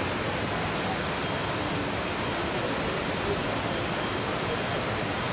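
Steady, even rushing noise with no distinct events, of the kind wind on an outdoor camcorder microphone, tape hiss or distant falling water make.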